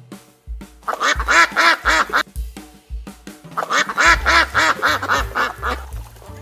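A duck quacking in two fast runs of calls, about seven a second, the second run the longer, over background music.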